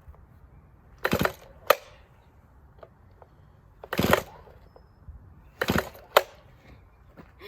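Starter cord of a climbing chainsaw yanked three times on a cold start, each pull a short rasp. The first and third pulls are followed by a sharp snap, and the engine does not catch.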